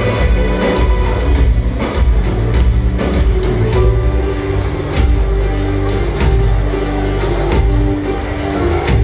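Live band playing an instrumental introduction, with drums, bass and guitar over sustained held notes and a steady beat of about two drum hits a second, heard through the PA from the back of a large hall.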